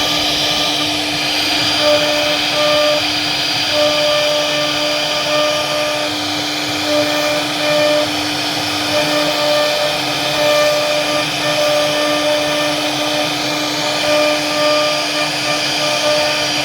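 Wood-carving CNC router running: the spindle gives a steady whine over the hiss of the bit cutting wood, while a second, higher tone breaks in and out every second or so as the machine moves.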